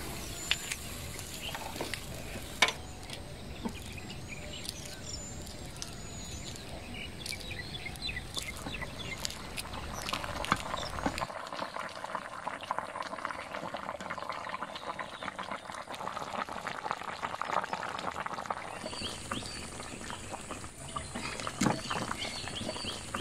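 Mango curry bubbling in a clay pot, a dense crackling simmer heard mostly in the second half. Birds chirp in the first half.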